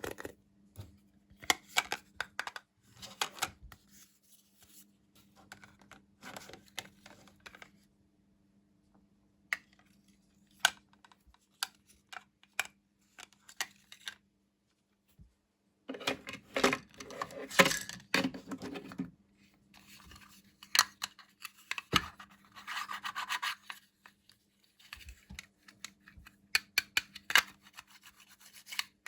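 Hands unpacking packaging: rubbing, scratching and tearing, with scattered small clicks and a louder spell of handling about two-thirds of the way through.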